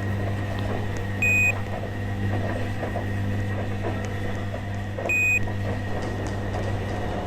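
Washing machine's control panel giving two short high beeps a few seconds apart, over a steady low hum.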